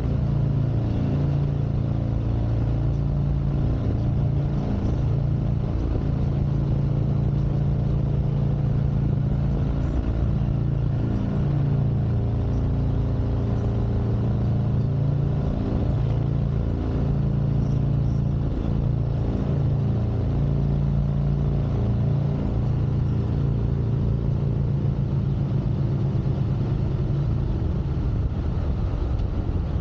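Harley-Davidson Street Glide Special's V-twin engine running under way, heard from a bike-mounted camera, its pitch dipping and rising again several times as the rider works the throttle.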